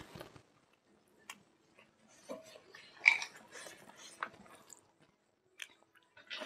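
A man chewing and mixing rice and smoked pork by hand on a wooden plate: scattered soft, wet clicks, one sharper click about three seconds in, and a denser burst of mouth noise near the end as he takes another handful into his mouth.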